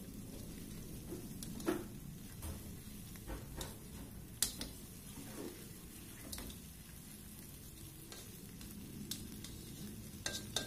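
Shell-on prawns frying in butter with curry leaves and chili in a wok, giving a steady low sizzle. A spatula stirs and turns them, with a few sharp taps against the pan, the loudest about four and a half seconds in.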